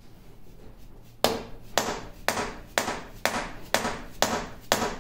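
Hammer blows on the carriage of a 1950 LeBlond Regal 17-inch lathe. The strikes are sharp and steady, about two a second, starting about a second in, knocking the stuck carriage to free it from its channel.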